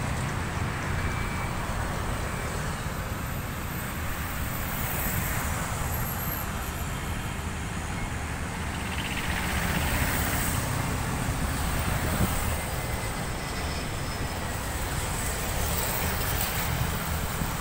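Road traffic noise from cars and motorbikes passing, with a swell about halfway through.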